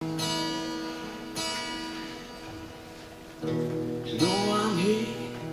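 Acoustic guitar strumming chords, each strum left to ring. A man's voice begins singing over it about four seconds in.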